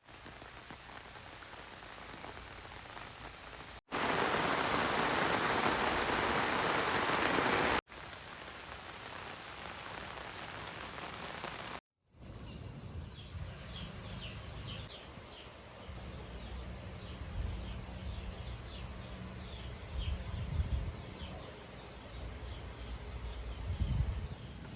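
Rain falling steadily, much heavier for a few seconds in the middle, then, after a cut, quieter outdoor ambience with a brief run of high bird chirps and a low rumble.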